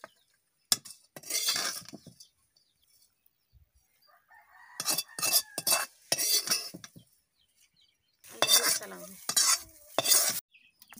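Metal ladle scraping and clanking against a steel kadai in several separate bursts as fried small fish are scooped out of the pan.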